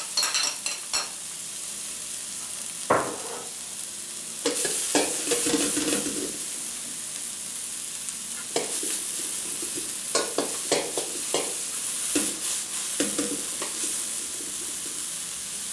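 Chopped onion sizzling in hot oil in a stainless steel sauté pan, with a metal spoon stirring and scraping against the pan in short strokes. The onion is frying as the base of an aderezo.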